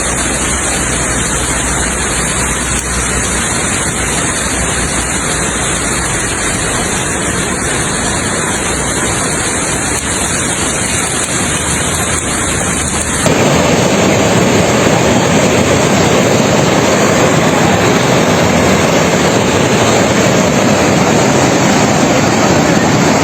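A steady wash of water noise from heavy rain and flooding. About 13 seconds in it changes abruptly and becomes louder and fuller.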